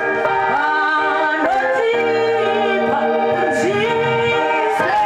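Live Shona gospel singing: a woman's lead voice carried by a group of backing singers.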